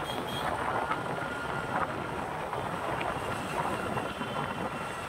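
Steady rush of road traffic and wind buffeting the microphone while travelling along a busy road.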